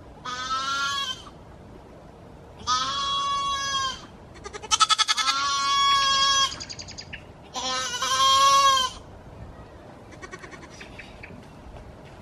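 Goat kid bleating loudly four times, each call about a second long; the third is longer and quavers at its start.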